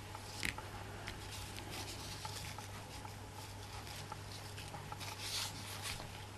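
Faint rustling and light handling noises of ribbons being gathered and worked by hand, a little stronger about half a second in and again around five seconds in, over a steady low hum.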